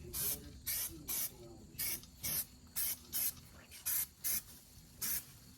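Bare-metal primer sprayed onto a truck body panel in about ten short hissing bursts, spot-priming bare metal patches.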